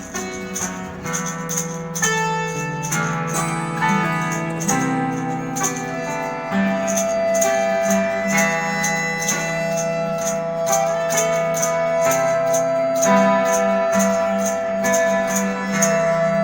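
Live band playing an instrumental passage: guitar over changing bass notes and a steady percussion beat, with one high note held for several seconds from about halfway through.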